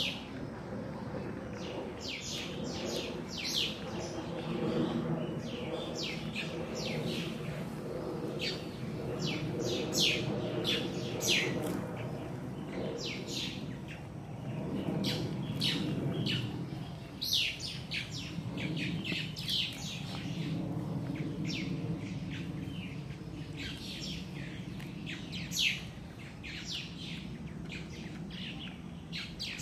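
Small birds chirping, a steady stream of short, quick, high chirps that keep coming throughout, over a low steady background murmur.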